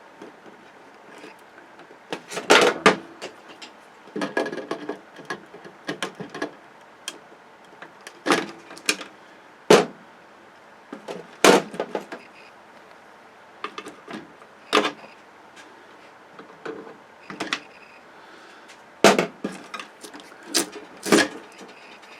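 Irregular sharp clicks, clacks and knocks of a flat-screen TV's parts being handled and taken apart by hand: circuit boards, cables and metal or plastic pieces. About a dozen louder knocks are scattered among lighter rattles.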